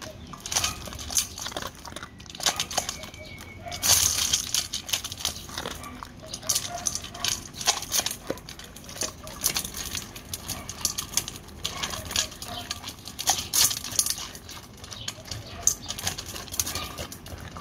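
A dog eating dry kibble from a stainless steel bowl: irregular crunching and chewing, with pellets clicking against the metal bowl several times a second.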